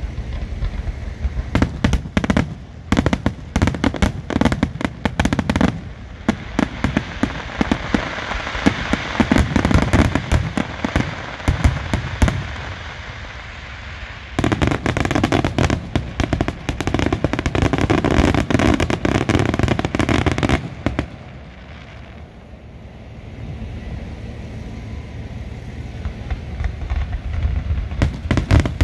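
Fireworks display: rapid bangs and crackling, dense at times, with two quieter spells, one about halfway through and a longer one about three-quarters through, before it builds up again.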